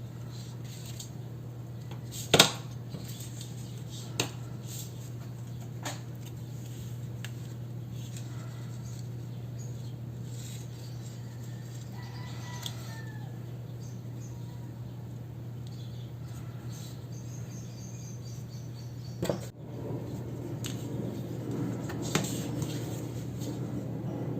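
Desk sounds from handling journaling things: a few sharp clicks and taps, one much louder than the rest, over a steady low hum. The last few seconds turn to denser rustling.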